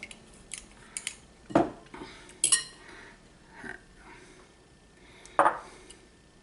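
A spoon clinking and knocking against a mixing bowl a few separate times, the loudest knocks about a second and a half in and near the end.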